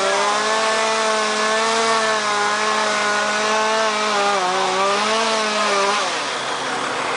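Chainsaw running at high revs, cutting wood, its pitch sagging and recovering under load. The saw's note drops away about six seconds in.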